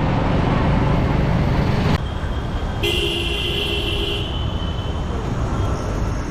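Loud street traffic rumble that cuts off suddenly, then a vehicle horn sounds once, held steady for about a second and a half, over lighter road traffic.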